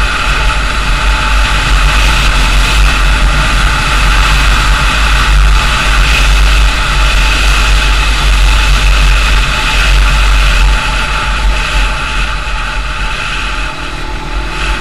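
Steady wind rumble on the microphone and vehicle running noise from a vehicle travelling along a paved road, easing slightly near the end.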